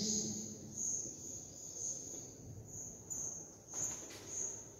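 A marker writes on a whiteboard with a faint scratch about four seconds in. Under it runs a steady, high-pitched, pulsing chirring.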